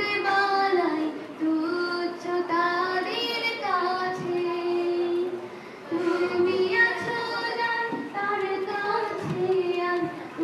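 A girl singing an Islamic gazal in Bengali: one high voice carrying a slow melody with long held notes, and a short break for breath a little past the middle.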